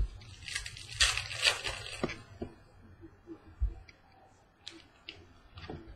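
Trading cards being handled: a tap, then a second or so of crinkling and rustling with clicks as cards and packaging rub together, followed by light scattered clicks and taps.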